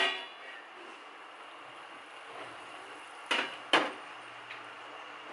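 A steel plate clatters down on the stove top at the start, then two sharp metal knocks about half a second apart as the rim of a nonstick frying pan strikes the steel plate while the omelette is slid onto it, over a faint steady hiss.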